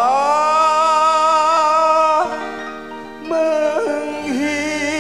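Live dangdut band playing between sung lines. A melodic line glides up into a long held note with slight vibrato for about two seconds, the music drops softer for about a second, then new notes come in.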